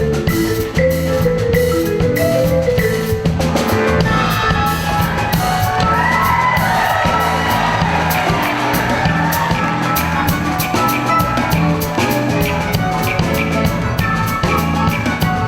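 Band music with a steady drum beat over a bass line. A stepping melody at the start gives way to a fuller, higher swell from about four seconds in.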